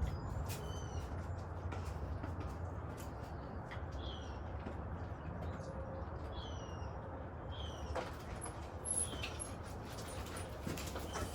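Small birds chirping now and then, short falling chirps, over a steady low background rumble.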